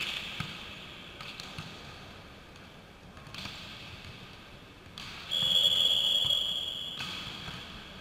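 A volleyball struck with a sharp smack right at the start, with a few fainter ball hits after it. About five seconds in, a referee's whistle sounds one steady, high blast lasting about a second and a half, the loudest sound here.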